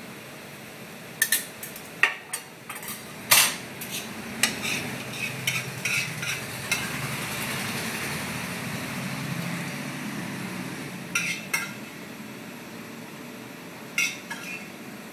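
Metal utensils clinking, knocking and scraping against an aluminium sauté pan and a ceramic plate as pasta and sauce are served, in clusters of sharp clicks, with a steady hiss for a few seconds in the middle.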